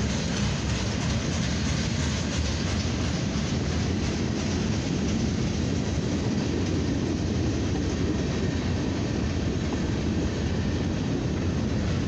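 Freight cars of a long CSX coil train rolling past close by: a steady rumble and clatter of steel wheels on the rails.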